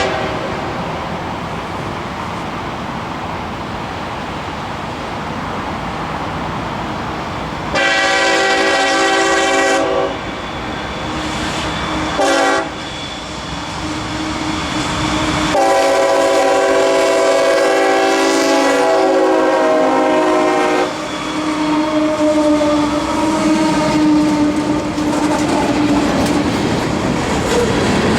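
Freight locomotive's air horn sounding over the noise of the moving train: a long blast, a short one, then another long one. Fainter, lower horn notes linger afterwards, with wheels clattering on the rails underneath.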